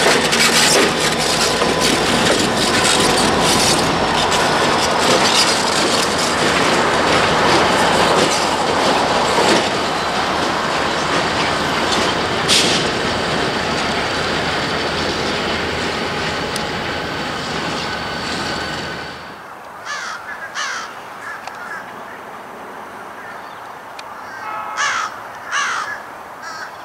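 EMD GP30 diesel locomotive running loud while hauling passenger coaches. The sound drops away abruptly about two-thirds of the way through, and then crows caw several times.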